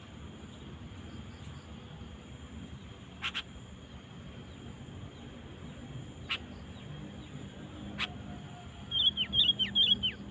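Sooty-headed bulbul calling: a few short, sharp isolated notes, then near the end a quick run of about five notes, each dropping in pitch.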